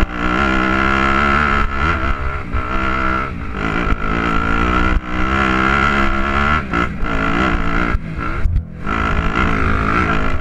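Dirt bike engine heard on board, revving up and falling back again and again as the throttle is worked, with wind buffeting the microphone; the throttle drops off briefly about eight and a half seconds in.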